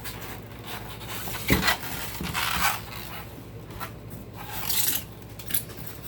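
Box packaging scraping and rubbing in irregular strokes as the carpet washer is pulled out of its carton, with a knock about a second and a half in and a click near the end.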